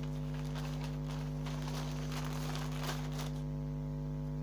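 A steady electrical mains hum, with crinkly rustling from objects being handled on the table; the rustling starts about half a second in and stops about a second before the end.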